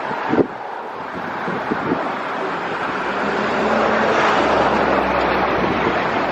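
Jet aircraft engine noise swelling as the plane passes, loudest about four seconds in, with a low steady hum under it. Wind buffets the microphone, giving a couple of thumps near the start.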